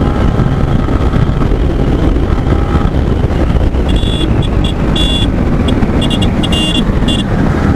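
Motorcycle on the move: wind rushing over the camera microphone with engine and road noise. Short high-pitched tones come and go for about three seconds in the middle.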